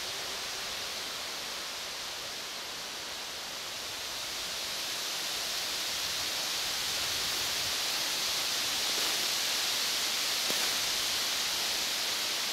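Steady, even hiss of a quiet forest, with no distinct event, growing slightly louder about a third of the way in.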